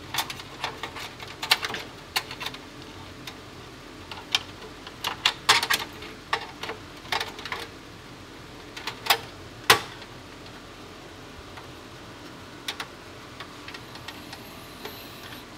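Irregular clicks, taps and light rattles of sheet metal and plastic as a graphics card's low-profile bracket is worked into the expansion slot of a small form factor PC case and latched. The clicks are thickest in the first two-thirds, with the sharpest a little past halfway.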